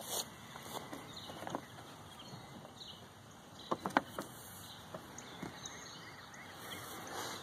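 Faint outdoor background with scattered light clicks and knocks; the loudest is a pair of sharp clicks about four seconds in.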